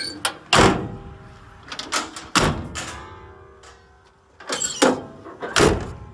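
Metal compartment doors on a pickup's utility service body being latched and slammed shut: a latch click, then several loud clunks, one about two and a half seconds in followed by a brief metallic ring.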